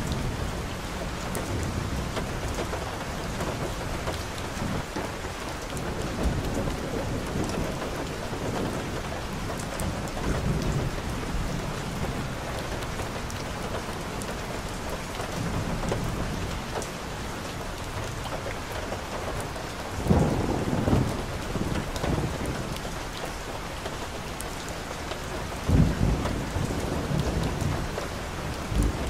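Steady rain falling on a wet paved street, an even hiss and patter. A few louder low rumbles rise through it, about two-thirds of the way through and again near the end.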